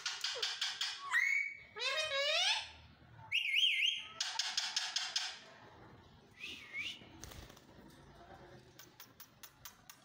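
Alexandrine parakeets calling: harsh screeches mixed with gliding, warbling whistles. The calls come thickest in the first five seconds, then thin to a short whistle and a few clicks near the end.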